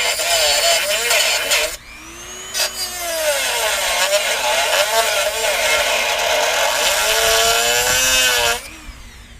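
Dremel rotary tool with a cut-off wheel cutting slits, its high whine wavering as the wheel bites and the motor is loaded. It cuts in two runs: a short one that stops after about two seconds, then a longer one that spins up again and winds down near the end.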